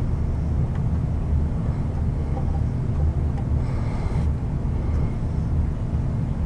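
Steady low rumble of background noise, with a brief faint rustle about four seconds in.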